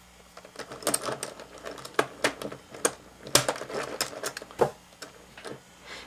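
Plastic pieces of a 5x5 Rubik's Cube clicking as they are pushed and snapped into place in the top layer: a string of irregular sharp clicks, the loudest about three and a half seconds in.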